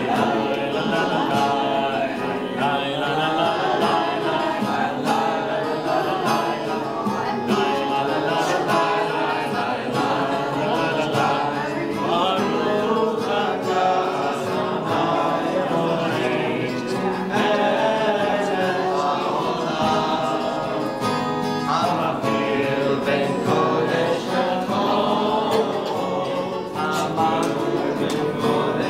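A group of people singing a Havdalah song together, led by a cantor, continuous throughout.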